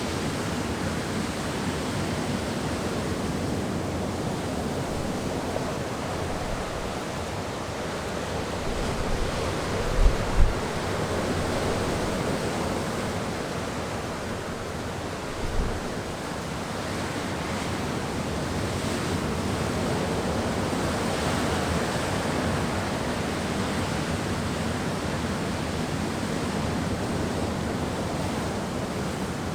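Wind blowing steadily, swelling and easing slowly. Short low buffets hit the microphone twice about ten seconds in and once more a few seconds later.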